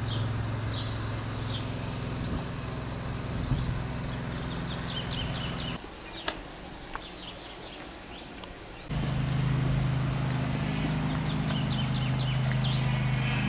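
Small birds chirping and singing over a steady low hum. The hum drops away for a few seconds in the middle, where a few soft taps are heard, and comes back louder near the end.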